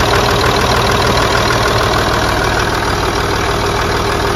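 Ford Territory's 2.7 TDCi V6 diesel engine idling steadily, with the replacement alternator charging the battery at about 14.4 volts.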